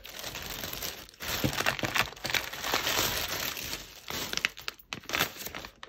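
Thin plastic bag crinkling and rustling as hands rummage in it and take out the last items, with a few light clicks.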